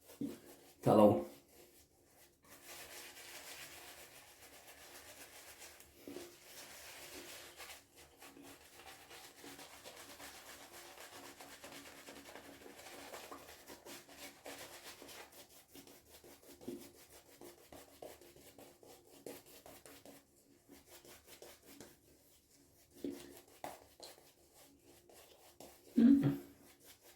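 Silvertip badger shaving brush working soap lather on the face: a faint, steady soft rubbing and swishing of wet bristles. It thins to scattered short strokes for the last few seconds.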